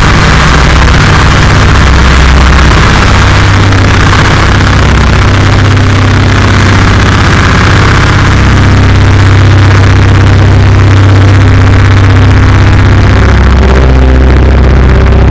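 Gorenoise music: a loud, dense wall of heavily distorted noise with a steady low rumble underneath, churning without a clear beat or melody.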